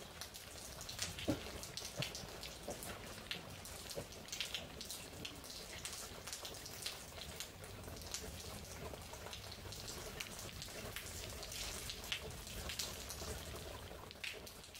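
Steady rain falling, a soft even hiss with many distinct drops ticking through it.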